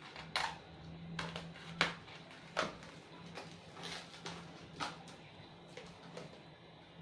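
Bubble-wrapped Sintra board frames being handled and unwrapped: a series of short, sharp crinkles and taps, about six of them, over a low steady hum.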